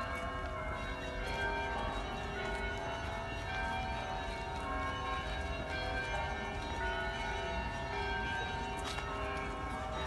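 Orthodox church bells ringing: several bells of different pitches struck again and again, their tones overlapping and ringing on.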